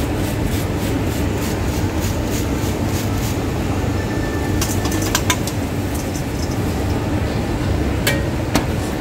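Wire fry basket shaken over a stainless steel bowl to drain oil from fried potato wedges: light rhythmic rattling, about four a second, for the first few seconds, then a few sharp metal clicks as the wedges are tipped into the bowl. A steady low machinery hum runs underneath throughout.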